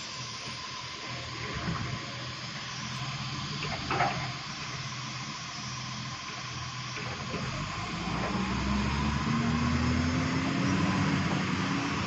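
Garbage truck's diesel engine running along the street, then pulling away about eight seconds in, its note rising slowly as it gets louder. A single short knock about four seconds in.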